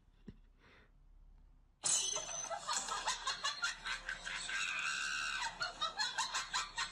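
Near silence with one faint click, then about two seconds in a person starts laughing hard, a rapid run of breathy, shrieking bursts.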